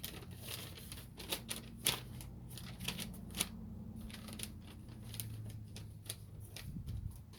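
Irregular crinkling, rustling and clicking of a parts package and its paper instructions being handled and opened, over a steady low hum.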